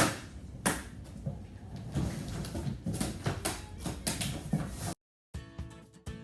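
Scattered knocks, taps and rustles of cardboard and packing tape being handled while a box is packed. They cut off abruptly about five seconds in, and guitar music starts.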